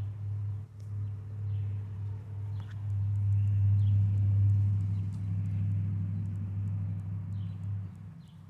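Motorcycle engine running nearby, a low steady drone that grows louder about three seconds in and fades away near the end. Faint bird chirps sound over it.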